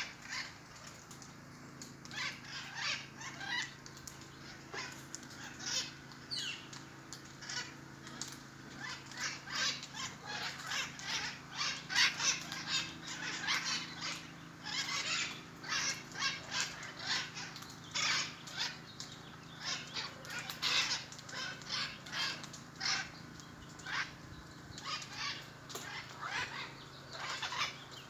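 A flock of mitred conures calling: many short, harsh calls in quick succession, busiest in the middle.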